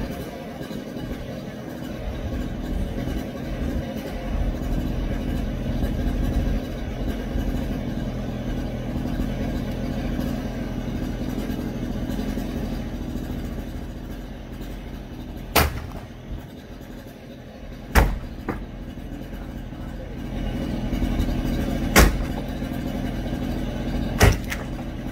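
A heavy machine's engine running steadily through the demolition of a garage. Four sharp bangs of the structure being broken ring out over it: two about fifteen and eighteen seconds in, and two more near the end.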